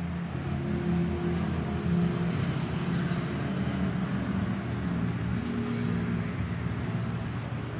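A steady engine hum.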